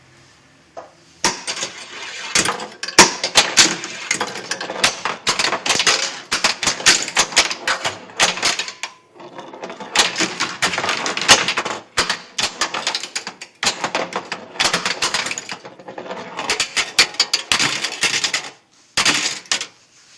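Bride of Pinbot pinball machine clattering with rapid, irregular clicks and knocks in long runs, broken by short pauses about 9 and 18 seconds in.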